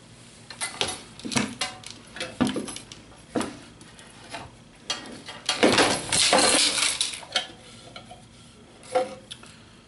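A PVC-pipe dust-collector inlet with a chain on its end being picked up and moved about: a series of clinks and knocks from the chain links and the hollow plastic pipe, with a longer run of rattling and scraping about six seconds in.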